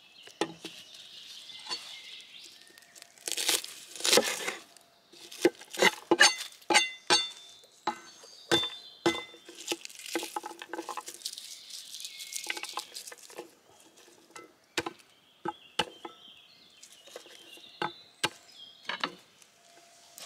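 A garlic bulb being broken into cloves and peeled by hand on a wooden cutting board: dry papery skins rustling and cracking, with many sharp knocks of cloves and fingers on the board. The densest rustling comes about three seconds in and again about ten seconds in.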